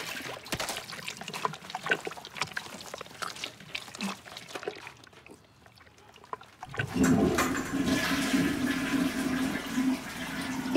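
Liquid splashing and dribbling into a toilet bowl as it is emptied by hand, then the toilet flushes about seven seconds in: a loud, steady rush of water with a low tone underneath.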